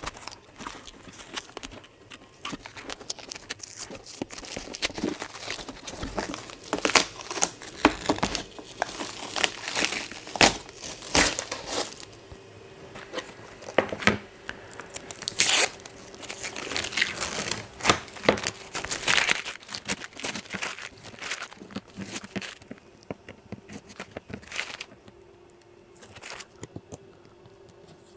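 Blue painter's tape being peeled and ripped off a plastic pickguard sheet while the sheet is handled: irregular tearing and crinkling with sharp crackles, thinning out near the end.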